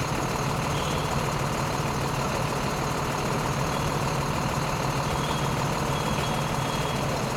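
Steady low hum of an idling engine with an even hiss over it.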